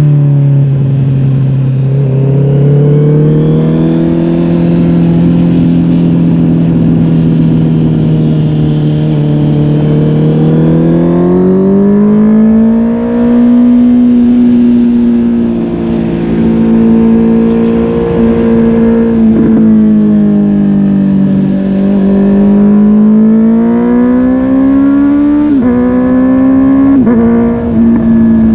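Honda CB650R's inline-four engine running through a MIVV GP PRO Carbon aftermarket exhaust while riding, its revs rising and falling smoothly. There are two quick drops in pitch near the end.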